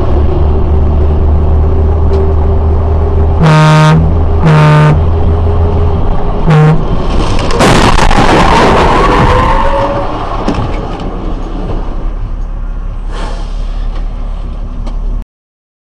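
A truck's engine running loudly, heard from its cab. The horn gives two blasts and then a short toot, and then comes a collision: a crunch and scrape as a car strikes the side of the truck's front. The engine and road noise carry on after it and then cut off suddenly.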